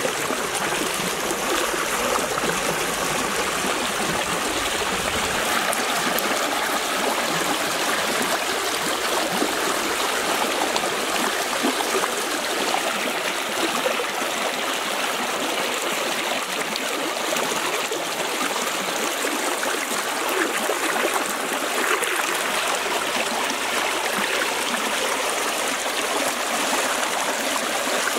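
Shallow rocky stream rushing steadily over stones, with small splashes from hands working fish in the current.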